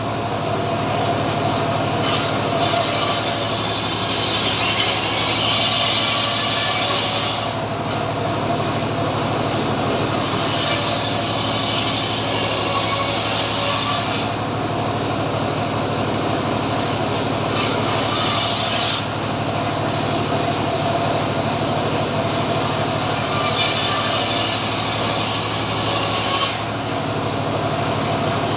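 Homemade engine-driven sawmill (gergaji srekel) running steadily while its blade rips through teak. Four stretches of a few seconds each have a hissing cutting sound, with the machine running on alone between them.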